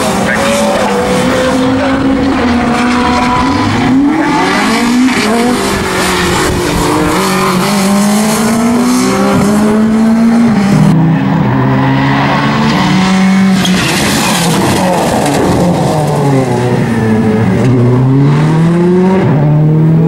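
Ford Fiesta rally car's engine revving hard, its pitch climbing and dropping again and again through gearchanges and lifts for corners.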